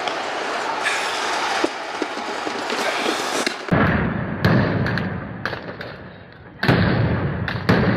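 Noisy crowd din, then, after an edit, about four loud bangs and thuds a second or more apart, heavy in the low end, as a protest rally is forcibly dispersed.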